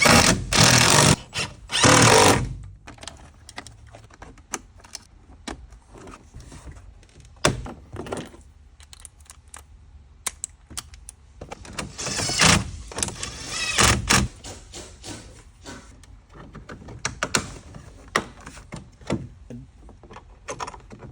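Hands refitting a van door panel: a run of clicks, knocks and plastic thunks. There are two louder stretches of rubbing and scraping noise, one at the start and one about halfway through.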